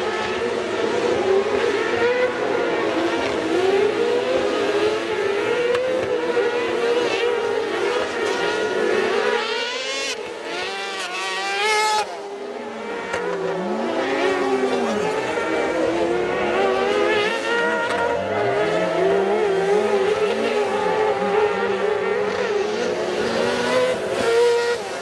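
Several racing engines revving, their pitch rising and falling as they speed up, slow and pass, with an abrupt drop in the sound about twelve seconds in.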